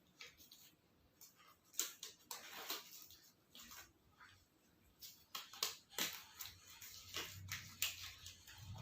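Intermittent rustling and light clicks, as of things being handled, with a low hum coming in near the end.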